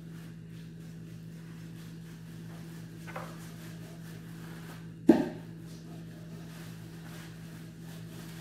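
A butcher's knife and pieces of raw goat meat being handled on a large metal tray: a faint knock about three seconds in, then one sharp knock against the tray about five seconds in, over a steady low hum.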